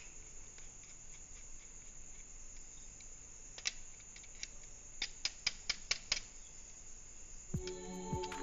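Small metallic clicks of a tester screwdriver working the terminal screws of switches on a plastic switch board: one click about three and a half seconds in, then a quick run of about six clicks a little later. Faint background music comes in near the end.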